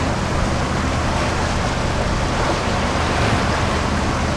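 Steady rush of wind and water along a sailboat's hull, with a low steady hum from the boat's engine underneath.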